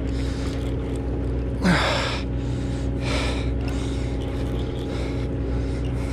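A person breathing hard from exertion during a long fight with a hooked fish, with heavy breaths about every second and a half and a louder gasp about two seconds in. Under it runs the steady hum of the boat's engine.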